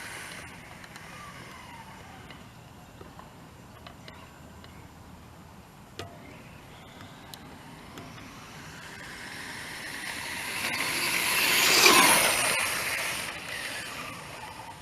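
Electric RC rally car driving past. Its motor whine and tyre noise build up, are loudest about twelve seconds in, then fall away in pitch and level as it passes and recedes. There is a single sharp click about six seconds in.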